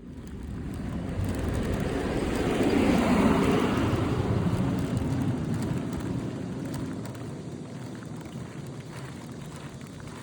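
Rumbling noise of a passing vehicle, swelling to a peak about three seconds in and then slowly fading.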